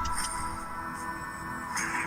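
Background music with steady sustained tones.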